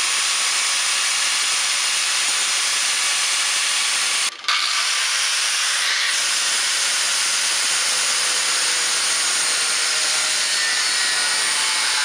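Electric angle grinder with a thin abrasive cutting disc slicing through a woven carbon-fibre kayak paddle shaft: a steady high-pitched grinding hiss. It cuts out for a moment about four seconds in.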